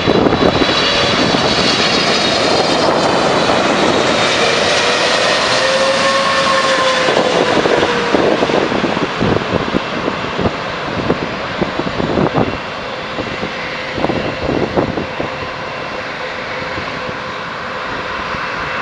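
Boeing 777-300ER's GE90 turbofan engines on a landing, a loud rushing jet noise with high fan whines that slide down in pitch over the first several seconds. It then settles into a lower, steadier rumble.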